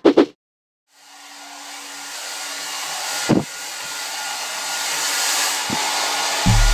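Hair dryer running, its steady whir fading in about a second in and growing louder, with a single knock about three seconds in.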